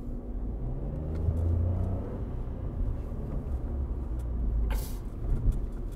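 Cabin sound of a Smart Fortwo on the move: its small three-cylinder turbo petrol engine running with low road rumble, its tone rising as it speeds up about a second in. A brief rush of noise near the end.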